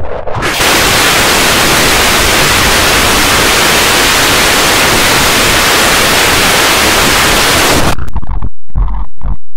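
Loud, even static-like white-noise hiss from a heavily effects-processed logo soundtrack, starting about half a second in and cutting off abruptly about eight seconds in. It gives way to choppy, stuttering bursts with a heavy low rumble broken by short silent gaps.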